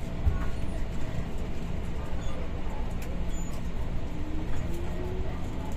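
Cabin running noise of a JR 205 series electric train's motor car: a steady low rumble of wheels on track, with a faint traction-motor whine rising in pitch as the train accelerates.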